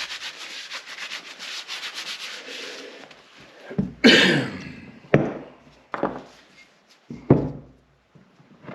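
Hand tools at work on the bench during bolt torquing: a run of rapid fine clicks for about three seconds, then four sharp metallic knocks about a second apart, each ringing briefly.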